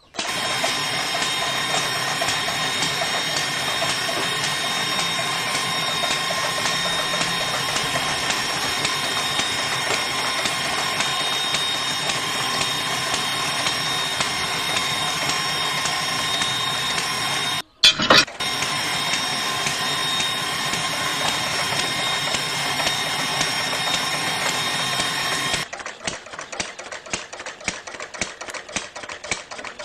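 Small geared DC motor of a homemade mini drilling rig running steadily, turning the drill bit into wet soil, with a steady high-pitched whir. It breaks off briefly with a couple of sharp clicks about two-thirds of the way in. Near the end it gives way to a quieter, fast, even ticking.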